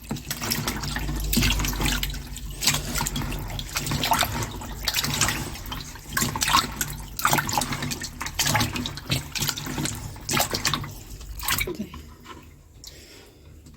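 Tap water running into a sink while dried figs are rinsed by hand, with scattered short knocks and splashes. The running water stops about twelve seconds in.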